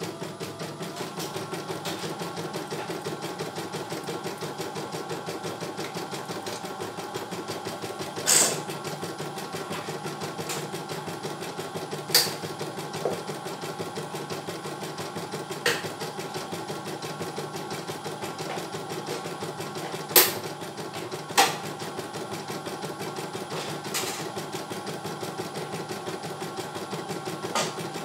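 CNY E900 computerized embroidery machine stitching a design, its needle running in a rapid, even rhythm, with a few sharper clicks every few seconds.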